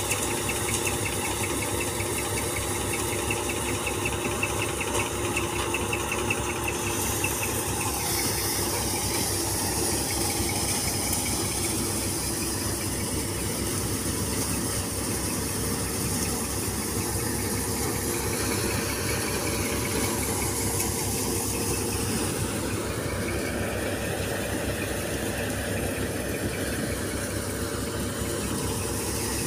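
Tractor-driven Bhagat wheat thresher running steadily under load, its tractor engine and spinning drum and blower making an even mechanical drone with a hiss of chaff blowing out.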